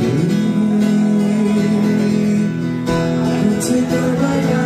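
Background music led by acoustic guitar, a steady run of held notes.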